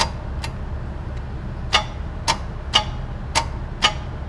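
Sharp metallic clicks at uneven intervals, one or two a second, over a steady low hum, with no engine cranking or firing: the Trailblazer SS's starter circuit clicking as starting is tried, the sign of a dead starter.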